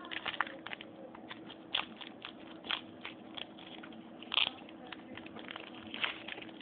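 Foil trading-card pack wrapper crinkling and crackling irregularly as it is torn open and handled, with a louder crackle about four seconds in.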